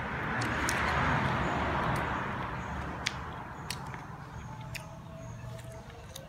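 Eating sounds from crispy fried chicken wings: sharp clicks of biting, chewing and lip-smacking, scattered through the second half. Under them, a rushing noise with a low hum swells during the first two seconds and then fades.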